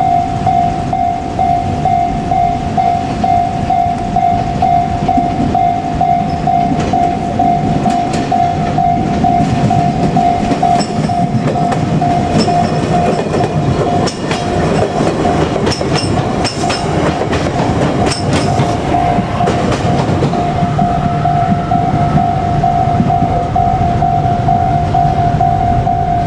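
Japanese level-crossing warning bell ringing in a steady repeating pulse while a JR Kyushu 817 series electric train runs past, its wheels clattering over the rail joints. The bell is drowned out in the middle as the train passes closest. A faint rising whine follows near the end.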